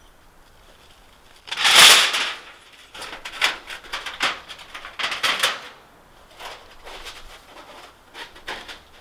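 Camping gear rustling as it is taken out of a backpack and handled, in a string of short, noisy bursts. The loudest comes about two seconds in.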